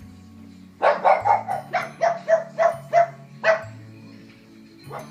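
Pug barking in a quick run of about ten sharp barks, then falling silent for about a second before one more bark near the end.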